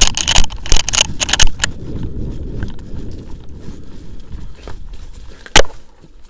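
Running footsteps with gear jolting against the body-worn camera, about three heavy thuds a second for the first second and a half, then softer shuffling and rustling steps through dry leaves. A single sharp knock about five and a half seconds in.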